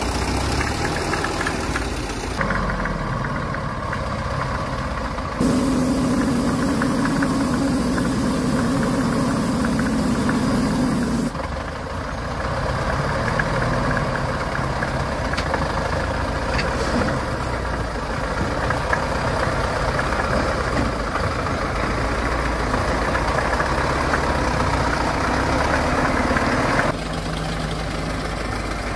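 Homemade logging truck's open-mounted engine running steadily as the loaded truck crawls through mud and up a rough slope. The engine note changes abruptly a few times, about two, five, eleven and twenty-seven seconds in.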